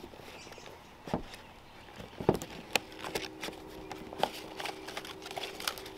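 Hands opening a small cardboard product box: scattered light clicks, taps and rustles of packaging. A faint steady hum starts about halfway through.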